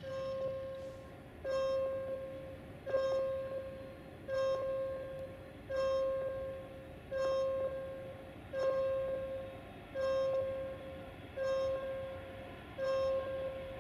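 Railway level crossing warning bell ringing at a steady pace, about one ring every second and a half, each ring starting sharply and fading away before the next.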